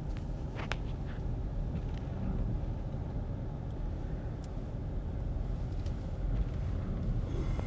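Steady low rumble of a car's engine and tyres heard from inside the moving car as it drives slowly, with a sharp click near the start.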